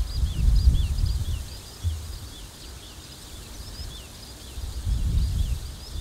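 Wind gusting on the microphone, strongest at the start and again near the end, while a bird sings a continuous run of short high chirps.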